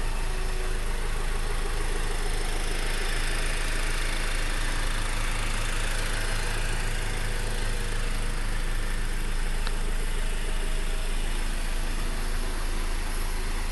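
Honda Accord's direct-injection engine idling steadily with the hood closed. Its clicky, almost diesel-like sound is the normal noise of direct injection and a timing chain, not a fault.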